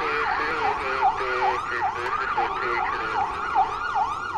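Emergency vehicle siren on a fast yelp, its pitch sweeping up and down about two and a half times a second.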